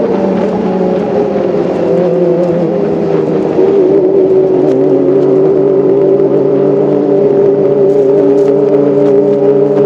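Kawasaki ZX-25R's 250 cc inline-four engine running with a steady, pitched note that drifts slowly lower; it gets a little louder about three and a half seconds in.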